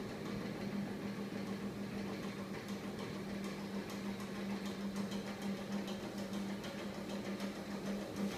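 Homemade magnet-coupled crankshaft machine driven by a small 24 V electric motor, running steadily: a constant hum with faint clicking over it.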